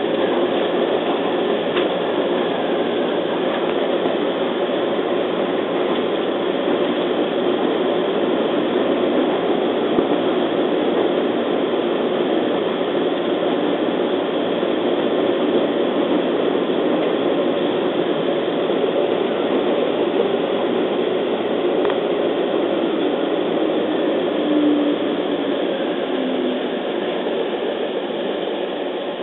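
Running noise of a JR East 211 series electric train heard from inside the passenger car: the steady rumble of wheels on rails and the car's running gear at speed. A faint tone steps down in pitch about 25 seconds in, and the noise eases slightly near the end.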